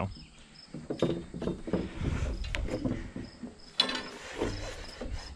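Steel scaffold staging being handled: metal frame parts knock and rattle, with a sharper clank about four seconds in. Crickets chirp steadily in the background.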